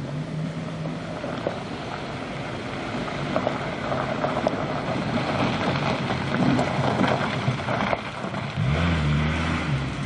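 Military off-road vehicle driving along a gravel track, with a steady rushing noise. Its engine becomes clearly audible about eight and a half seconds in and grows louder as it comes near.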